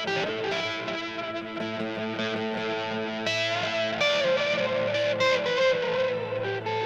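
Electric guitar played through a TC Electronic Flashback X4 delay pedal. Sustained notes and chords overlap with their echo repeats, and new notes are struck a few times.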